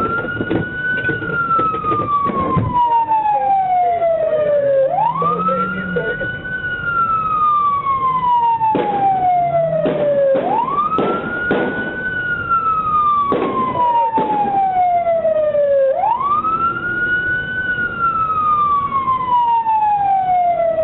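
Police car siren wailing, each cycle a quick rise in pitch followed by a long slow fall, repeating about every five and a half seconds. Several short sharp knocks cut through it in the middle.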